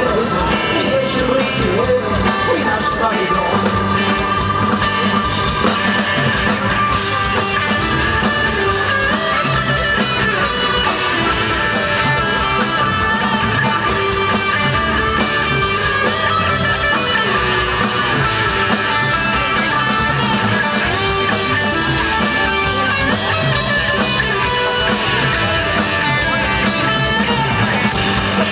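Rock music led by guitar, playing steadily without a break.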